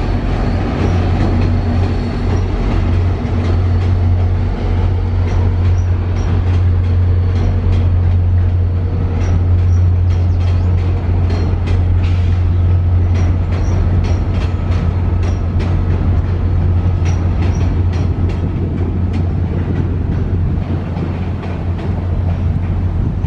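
VIA Rail train passing: a steady, loud low rumble from the train, with a run of sharp clicks of its wheels over rail joints through the middle.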